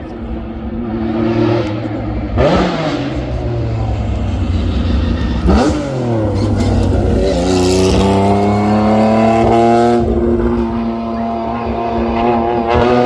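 Historic race cars on the move: two cars rush past with a quick drop in pitch, about two and a half and five and a half seconds in. Then an engine revs up hard, shifts up about ten seconds in and climbs again.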